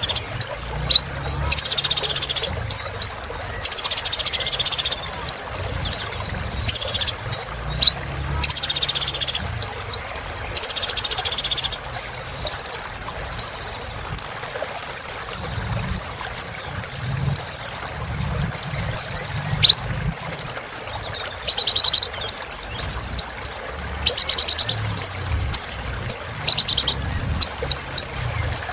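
Kolibri ninja sunbird singing continuously. Rapid, sharp high whistled notes alternate with buzzy, rattling trills of about a second each, over and over.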